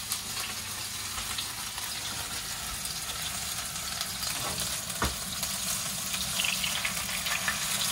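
Chicken pieces frying in oil in a frying pan, a steady sizzle, while chopsticks press kitchen paper into the pan to soak up the excess oil. One sharp knock about five seconds in.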